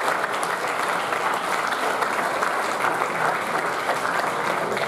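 Audience applauding steadily in an auditorium.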